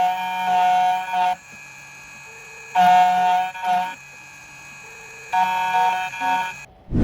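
Background music: a short electronic phrase of held, sustained notes, repeated three times with quieter gaps between.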